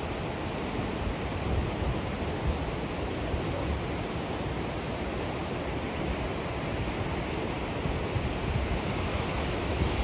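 Ocean surf: waves breaking offshore and washing up a sandy beach, a steady rushing noise that swells a little now and then.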